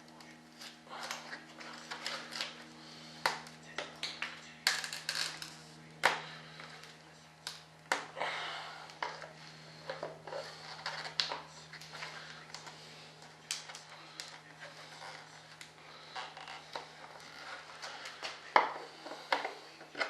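Hands working apart and handling a fiberglass mold: irregular clicks, taps, cracks and crinkly scraping, over a steady low hum.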